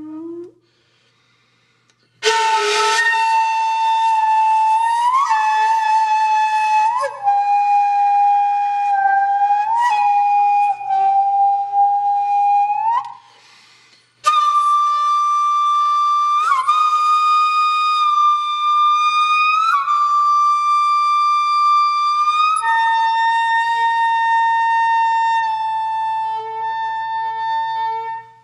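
Background music: a slow solo flute melody of long held notes, each sliding up into its pitch, with a short break near the start and another about halfway through.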